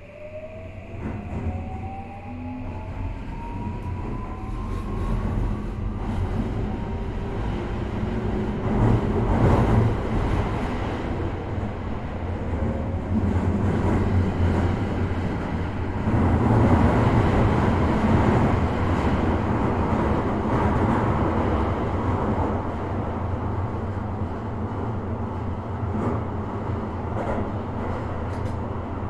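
Toei 5500 series train heard from inside the car as it pulls away: the motor whine climbs in pitch over the first several seconds. It gives way to a steady rumble of wheels on track that grows louder as the train gathers speed.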